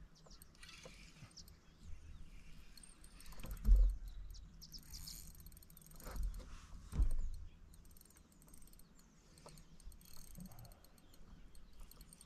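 Faint high chirping of birds and insects, with a few dull low thumps, the loudest about four seconds in and two more a few seconds later.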